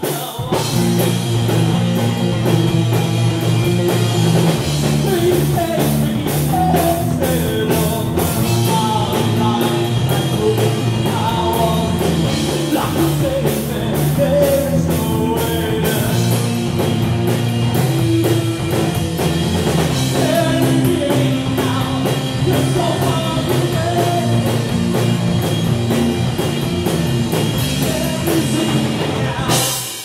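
Rock band playing live: electric guitars, bass guitar and drum kit, with a male singer.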